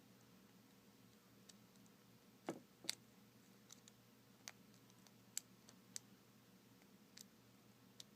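Faint, irregular small metallic clicks of a hook pick working the pin tumblers of a cheap padlock under tension, as pins are pushed up and set one by one.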